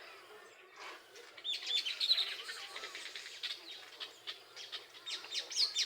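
Weaver birds chattering together: many overlapping quick chirps and short down-sweeping notes, busiest about two seconds in and again near the end.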